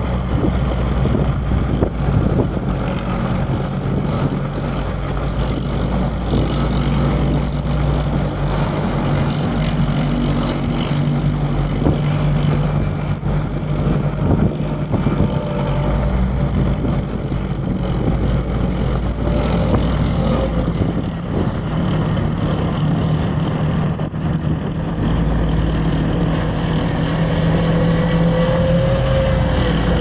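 M109 self-propelled howitzer driving at speed on a dirt track: its diesel engine runs with a steady drone over the clatter of its tracks, mixed with the rumble of the filming car on the same dirt road.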